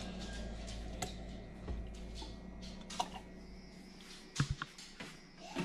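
Light clicks and knocks of a plastic jug and plastic cup being handled on a kitchen counter, the loudest few close together about four and a half seconds in, over a steady low hum.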